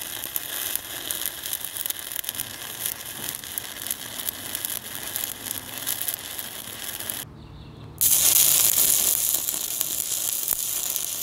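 Stick-welding arc from a 1/8-inch 7018 electrode crackling and sizzling steadily, run from a Fronius TransTIG 210 inverter at its 120-amp maximum on 120-volt power. About seven seconds in the crackle breaks off for under a second, leaving a low hum, then comes back louder.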